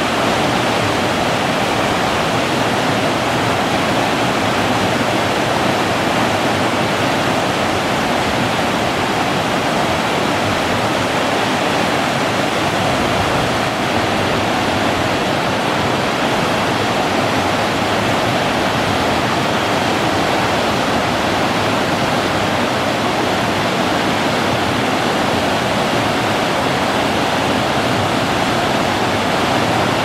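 River rapids rushing steadily, the water breaking white across the river's width: a loud, even rushing.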